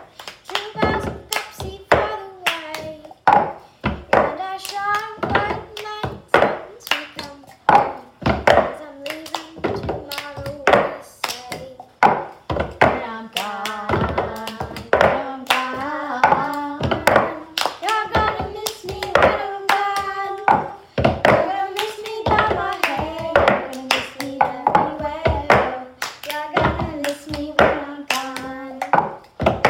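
Children singing a hand-clapping game song while clapping their hands and knocking plastic cups on a cloth-covered table, in a quick, steady rhythm of sharp claps and taps.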